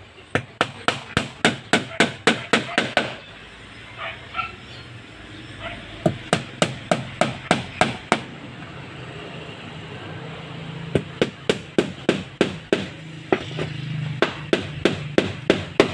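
Claw hammer nailing into the plywood side of a flat-bottom boat hull: sharp, evenly spaced strikes, about three to four a second, in four runs with short pauses between them.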